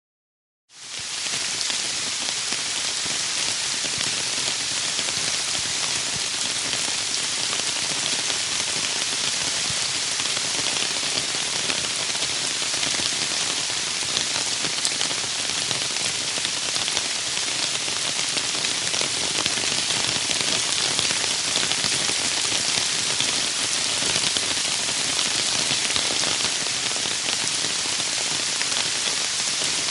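Rain falling on a zinc roof: a steady, even patter that fades in within the first second and holds unchanged.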